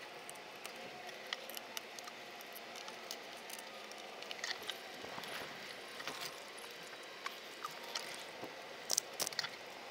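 Scattered small clicks and light plastic rattles as hands work the body shell off an RC rock-racer truck, undoing its fasteners, with a quick cluster of sharper clicks about nine seconds in.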